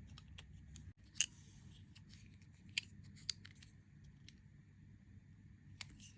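A few sharp, scattered clicks and ticks from handling the small plastic pieces of a rubber-band bracelet kit, the loudest about a second in.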